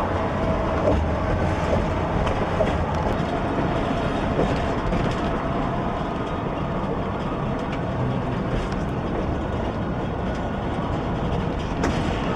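Steady low rumble of a moving vehicle heard from inside the cabin, with a few faint rattles and clicks.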